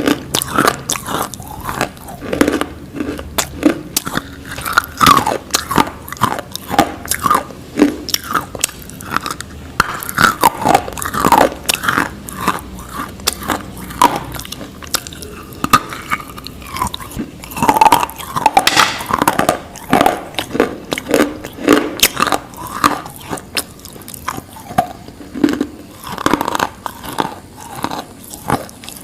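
Close-up biting and chewing of something hard and crunchy: a steady run of sharp, irregular crunches, several a second, with chewing between bites.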